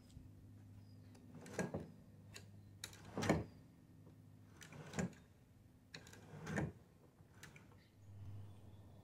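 A series of separate clunks and knocks, about seven, from a fishing kayak's foot-pedal and cable steering as it swings the stern-mounted Endura 30 lb-thrust trolling motor from side to side. The strongest knock comes about three seconds in, over a faint low hum.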